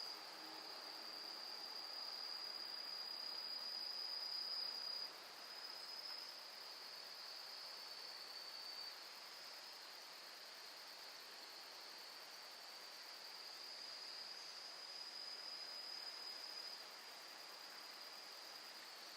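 Insects trilling: one unbroken high trill that shifts slightly in pitch a few times and drops a little in level about five seconds in, over a faint outdoor hiss.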